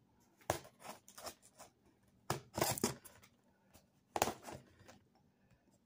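Hands handling a cardboard shipping box: short scrapes and taps of fingers and box on cardboard, in a few quick clusters about half a second in, around two and a half seconds, and at about four seconds.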